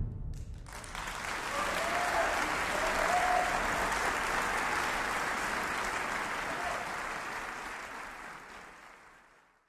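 The orchestra's final chord dies away, then an audience applauds steadily, with a few faint calls among the clapping. The applause fades out near the end.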